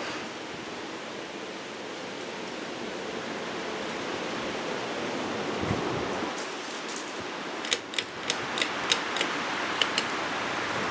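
52-inch Hampton Bay Huntington II ceiling fan running on high, a steady rushing of air from its blades. The fan has a wobble from poor blade pitch and a badly bent blade bracket. A quick run of sharp clicks comes near the end.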